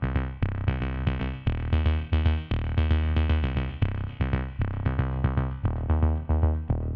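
Background electronic music: quick, evenly spaced synthesizer notes over a strong bass line with a steady beat.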